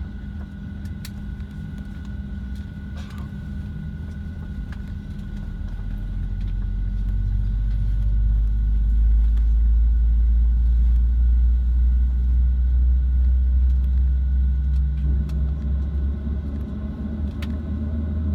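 Boeing 737-700 cabin noise: a steady hum with a faint high tone, under a deep rumble that builds about six seconds in and stays loud, with a brief dip near the end.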